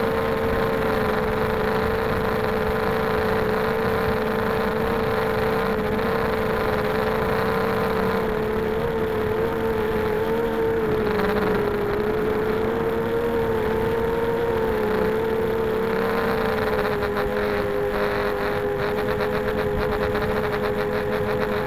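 Four brushless motors (RCX H1806 2400kv) of a 250-size FPV quadcopter spinning 5x3 props, heard from the camera mounted on the craft: a steady buzzing whine that wavers a little in pitch and dips slightly about three-quarters of the way through.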